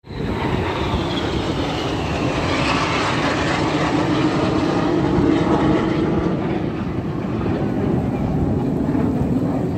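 Jet roar from a formation of aerobatic jets flying past, with a whine that falls in pitch over the first few seconds.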